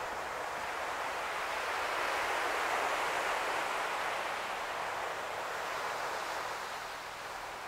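Steady outdoor hiss that swells to a peak about three seconds in and eases off again, with no bangs or crackles.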